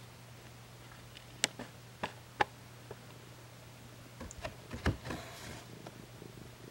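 Paper bag crinkling as a calico cat shifts inside it: a few sharp crinkles and clicks, then a busier patch with a soft thump about five seconds in, over a low steady hum.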